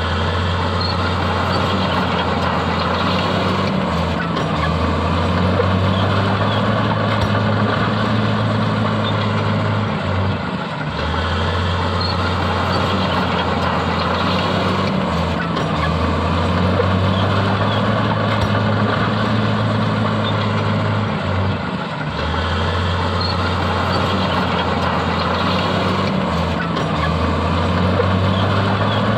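Heavy diesel engine of earthmoving machinery running steadily with a low, even drone, which dips briefly a few times.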